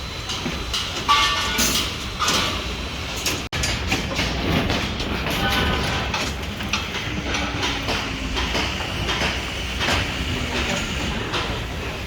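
Construction-site clatter of steel rebar: irregular metal clanks and knocks, some with a short ring, over a steady low rumble.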